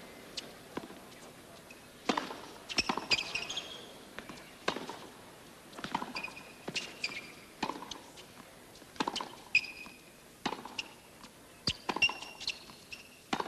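Tennis rally on a hard court: sharp racket strikes and ball bounces at irregular intervals, with short high-pitched squeaks from players' shoes between them.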